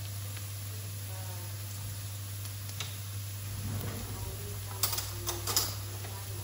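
Chopped onions frying in oil in a nonstick frying pan: a steady sizzle, with a few sharp crackles and pops about five seconds in, over a low steady hum.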